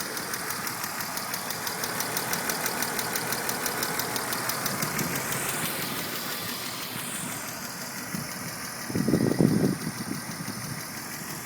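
2000 BMW 328Ci's straight-six engine idling with a rapid, even ticking, which the owner takes for lifter tick. The ticking is clearest in the first half, and a brief louder burst comes about nine seconds in.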